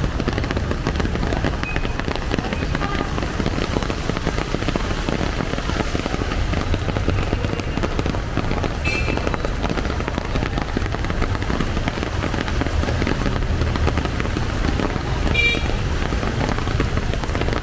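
Heavy rain pouring down steadily on a flooded street, a constant hiss of rain and water. A motorcycle passes close by near the end.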